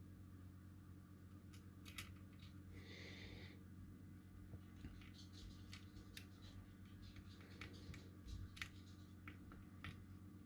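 Faint, scattered clicks and taps of a small four-legged tactile switch being fitted into a printed circuit board, over a steady low electrical hum.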